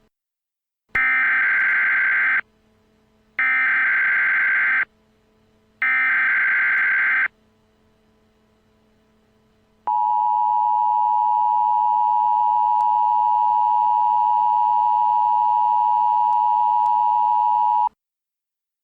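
Emergency Alert System signalling: three short bursts of warbling SAME header data, each about a second and a half long, then the EAS two-tone attention signal (853 and 960 Hz together), held steady for about eight seconds before cutting off. The header bursts carry the coded alert, and the attention tone announces that a spoken emergency message follows.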